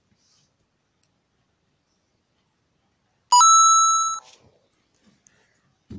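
Phone message notification chime: a short note that steps up to a higher held note, sounding once for just under a second, about three seconds in. Otherwise near silence.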